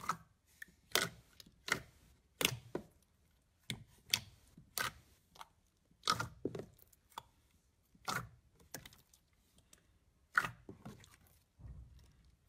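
Glossy pink slime being poked and pressed by hand in a tray, giving an irregular string of short, sharp, wet pops and clicks, about one or two a second.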